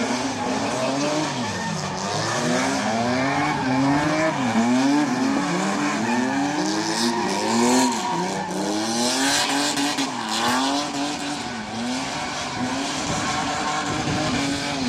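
Drift car engine revving hard up and down over and over, its pitch climbing and dropping about once a second, with tyres squealing through the middle.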